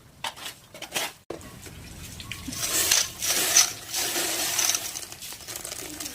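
Hail and rain falling: a dense patter of many small irregular impacts, louder and heavier from about two and a half seconds in, with a brief break about a second in.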